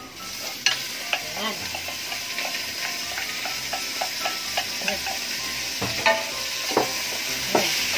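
Shredded chicken sizzling as it goes into hot oil with browned garlic and onions in a stainless steel pot; the sizzle builds steadily. A wooden spoon scrapes and knocks against the pot and glass bowl, with several sharp knocks near the end.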